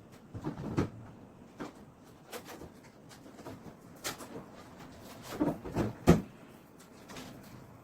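A series of irregular knocks and thuds at uneven intervals, the loudest about six seconds in.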